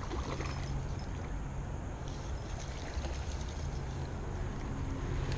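Steady rush of a creek's flowing water, running high after heavy rain.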